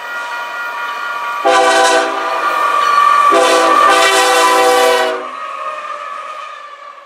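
Canadian Pacific GE ES44AC locomotive sounding its air horn as it approaches and passes, a chord of several notes that swells into two loud long blasts about one and a half and three and a half seconds in. It then fades as the train's cars roll by.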